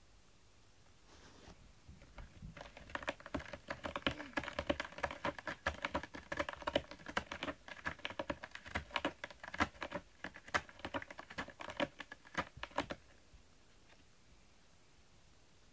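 A cat working at a corrugated cardboard scratcher, giving a dense, irregular run of crackly scratches and clicks that starts a couple of seconds in and stops about two seconds before the end.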